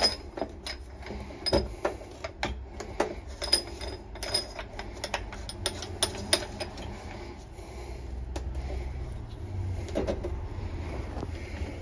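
Irregular light clicks and knocks of a plastic boiler system filter and its fittings being handled and pushed onto copper pipe.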